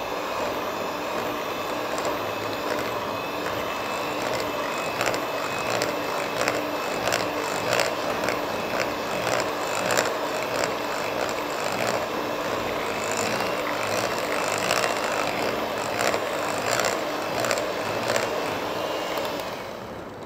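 Electric hand mixer running steadily, its twin beaters creaming margarine and sugar in a glass bowl, with frequent clicks as the beaters strike the glass. The motor winds down near the end.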